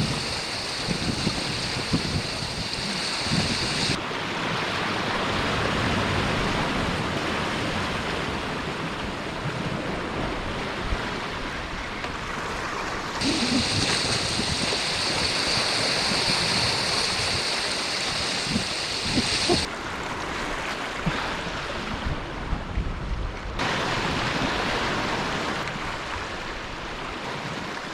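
Surf washing on a rocky shore, with wind buffeting the microphone. The hiss changes character abruptly a few times, and there are a few faint knocks.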